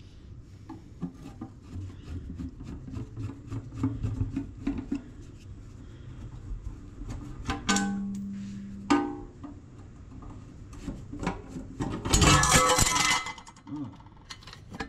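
Metal clicks and clanks from opening the milling machine's back cover: light clicking throughout, a knock about halfway through that sets the metal ringing at one pitch for about a second before it is cut off, a second knock, and a loud rattling scrape near the end.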